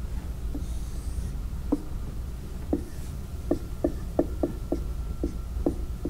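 Marker on a whiteboard: a run of about ten short taps and strokes, most of them close together in the second half, over a low steady room hum.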